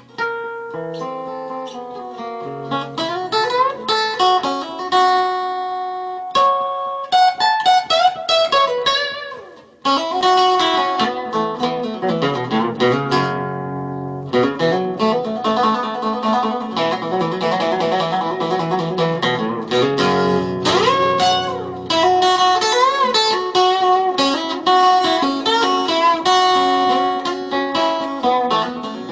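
Acoustic guitar played solo in a blues improvisation on a railroad theme, mixing picked single notes and strummed chords. There is a short break about ten seconds in, and a few bent notes about two-thirds of the way through.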